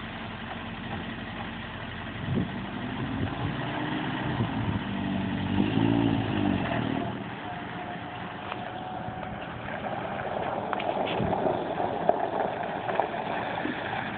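1965 Jeep CJ5's engine running as the Jeep drives across the yard, revived after 35 years parked. It rises in pitch and gets louder around the middle, then eases back, with a few sharp ticks near the end.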